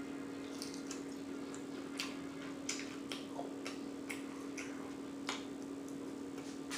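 Close-miked chewing of a sauce-dipped shrimp: irregular wet smacking clicks from the mouth, one or two a second.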